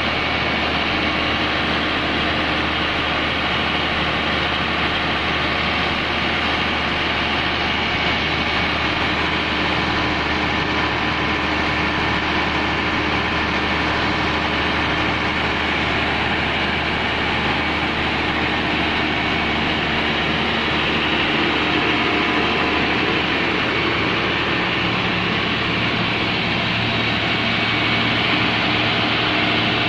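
Komatsu SA6D110 six-cylinder turbo diesel engine of a 130 kVA open-type generator set, running steadily on a test run.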